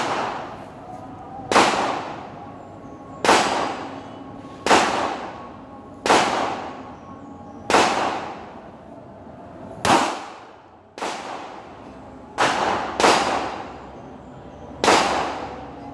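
CZ SP-01 9mm pistol firing single shots at a slow, steady pace, about nine shots roughly one and a half seconds apart, two of them close together near the end, each bang followed by a short fading echo.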